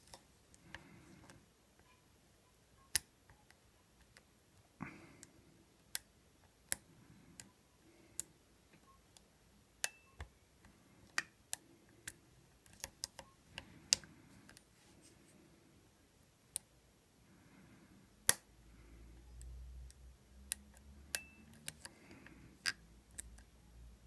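Irregular small, sharp metal clicks and ticks of a lock pick and tension wrench working the wafers inside an old Yale wafer padlock.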